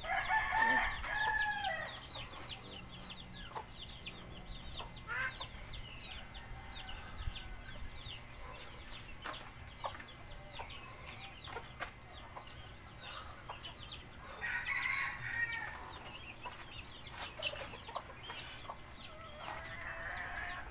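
Rooster crowing three times: once at the start, again about two-thirds of the way through, and once more at the end, each crow about two seconds long, over a steady run of short high chirps.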